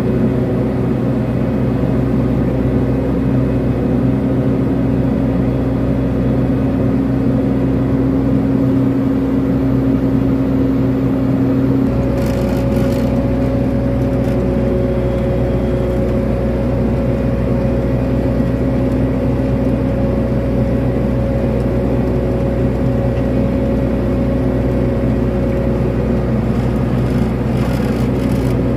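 Kobelco SK200 excavator's diesel engine running steadily under hydraulic load as it works the bucket. Its note shifts about twelve seconds in.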